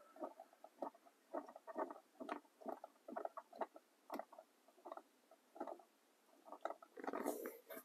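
Faint, irregular small clicks and scrapes of hands working a plastic blend door actuator into place on a car's HVAC housing behind the dash, with a longer scraping rustle near the end.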